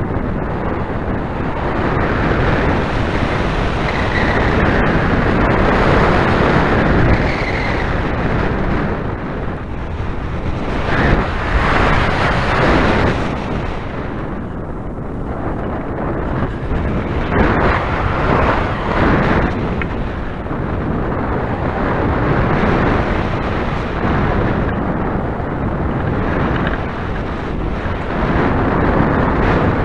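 Wind rushing over the microphone of a camera mounted on a hang glider in flight: a steady buffeting roar of airflow that swells and eases, loudest a little before and a little after the middle.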